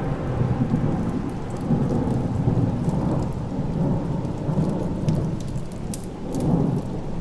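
Deep rolling rumble that swells and fades every second or so, over a steady hiss with scattered sharp crackles.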